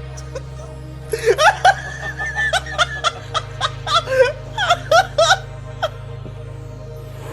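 Background music with a steady bass line. Between about one and six seconds in comes a run of short, loud, laugh-like bursts, a dozen or so, each bending in pitch.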